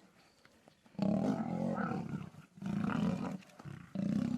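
Male lions roaring in a territorial fight, in three loud bouts after about a second of quiet.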